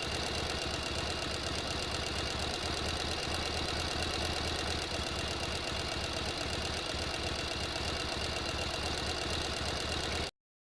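Sewing machine running steadily at speed, its needle stitching in a fast, even rhythm; it stops suddenly near the end.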